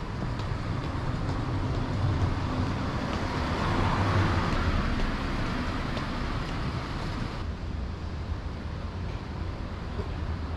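City street traffic noise, swelling as a vehicle passes about four seconds in and then fading.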